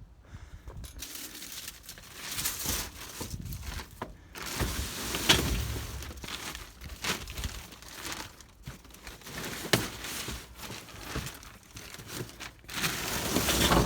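Rummaging through trash: bags and loose debris crinkling and shifting, with scattered sharp knocks as items are moved and dropped.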